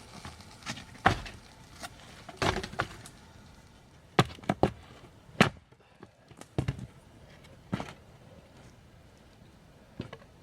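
A series of sharp chopping strokes at an irregular pace, about ten in all, with several coming in quick succession around the middle.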